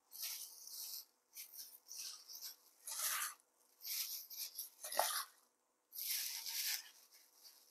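A plastic-gloved hand scoops marinated chicken pieces and mushrooms out of a metal bowl and onto a plate. It comes as a run of short handling noises, about six handfuls in all, with one sharp knock about five seconds in.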